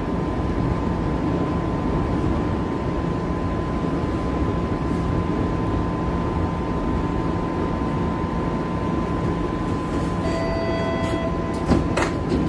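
Cabin sound of a TTC Bombardier Flexity streetcar running: a steady low rumble with a constant high tone over it. A short electronic tone sounds about ten seconds in, and a couple of sharp knocks come near the end.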